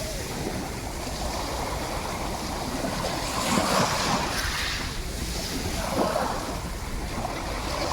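Sea waves washing in, swelling and falling, with wind on the microphone.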